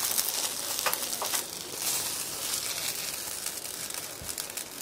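Food sizzling in a hot pan, with a few light crackles, just as it has started to scorch.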